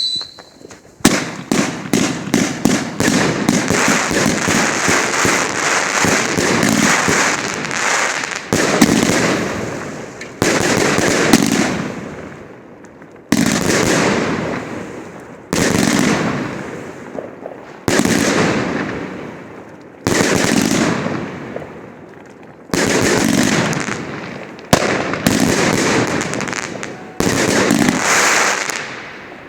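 Triplex TXB091 flowerbed firework cake firing: after a brief lull, a fast volley of sharp reports, then a string of separate loud bursts about every two seconds, each fading off in crackling.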